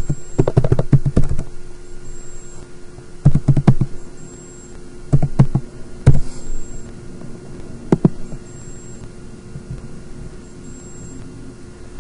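Computer keyboard typed in three short bursts of quick keystrokes, then two single sharp clicks a couple of seconds apart.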